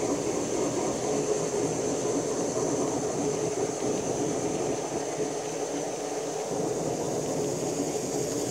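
G scale model freight cars rolling past close by, their wheels making a steady rumbling clatter on the track.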